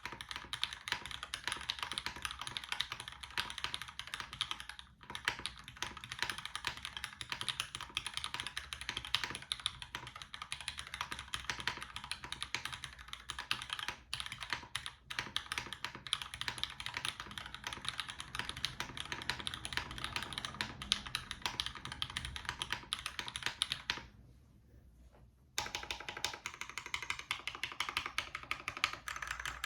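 Continuous fast typing on a top-mount mechanical keyboard with lubed linear Cherry MX Black Ultraglide switches, an aluminium plate and GMK keycaps: a dense run of keystroke clacks. The typing stops for about a second and a half near the end.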